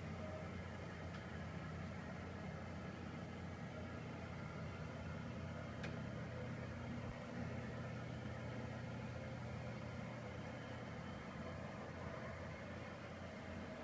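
Electric TV lift motor running steadily as it raises a flat-screen TV up out of its cabinet: a low, even mechanical hum.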